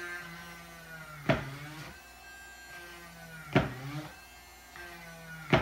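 Dremel rotary tool running with a steady whine while drilling holes in a plastic milk-jug lid, with three sharp cracks about two seconds apart.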